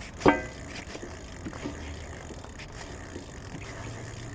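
Hands working on the electric bicycle's rear wheel and disc brake: one sharp, ringing metal clank about a third of a second in, then light scattered clicks and scrapes.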